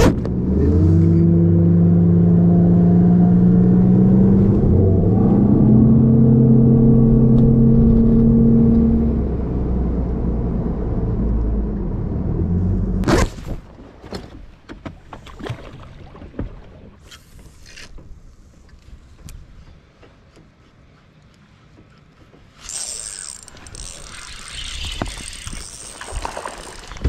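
Bass boat's outboard motor running loud and steady, its pitch stepping up about five seconds in, then cutting off abruptly about halfway through. After it come scattered light knocks, and near the end a steady hiss with a thin high whine.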